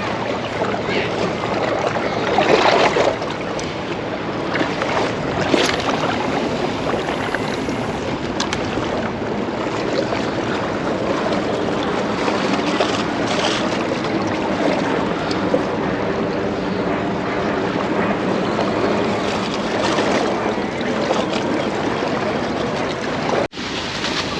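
Waves washing on the shore, mixed with wind buffeting the microphone, with a brief dropout near the end.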